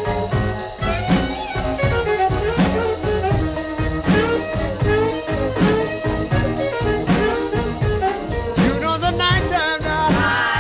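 Background music: an instrumental jazzy rhythm-and-blues passage with a steady beat and no singing.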